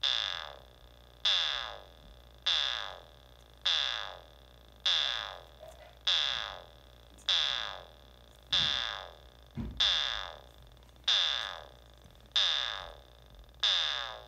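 A Noise Toaster analog synthesizer plays a steady train of short notes, about one every 1.2 seconds, through a small bare speaker. Each note starts sharply, rings brightly and dies away with a falling sweep.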